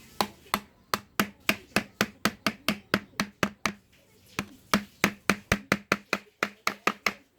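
A quick run of about twenty sharp clicks or taps, roughly three a second, with a short break around the middle.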